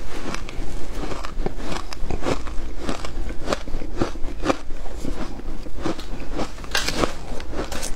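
Shaved ice crunching as it is bitten and chewed, close to the microphone: a fast, irregular run of crisp crackles several times a second.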